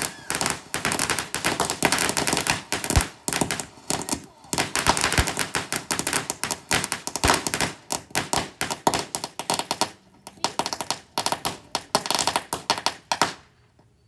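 Fireworks going off in a rapid, continuous string of sharp pops and crackles, with brief lulls, then stopping suddenly about 13 seconds in.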